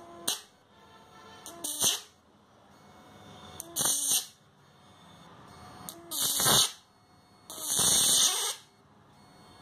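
High-voltage arcing from an electric fish-shocker's output lead touched to a steel hole saw: five crackling, buzzing bursts, the longest about a second near the end, with quieter gaps between.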